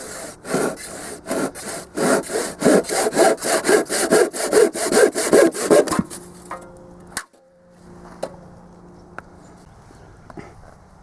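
Hand saw cutting through a wet pressure-treated yellow pine board, with quick back-and-forth strokes, about three a second, that stop about six seconds in. A single sharp knock follows about a second later.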